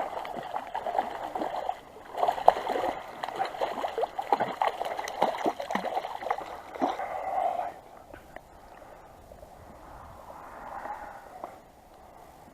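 Splashing and gurgling water from a hooked brown trout thrashing at the surface as it is brought in, busy and irregular for about the first eight seconds, then much quieter.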